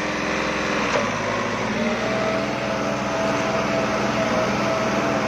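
New Holland 5620 Plus tractor's diesel engine running steadily under load while pulling a disc harrow through soil. The engine has been tuned for more horsepower. A steady high whine joins the engine sound about two seconds in.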